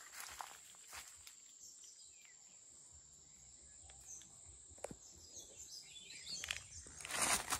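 Quiet rural ambience: a steady high-pitched insect trill with faint bird chirps, a few soft clicks, and a brief rustle near the end.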